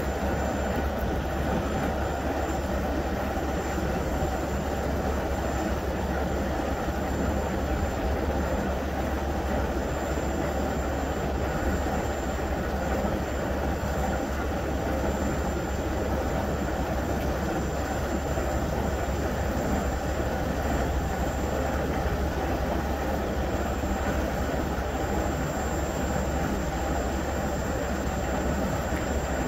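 Fuel tanker truck's diesel engine and fuel-offloading pump running steadily, pumping fuel out through the hoses.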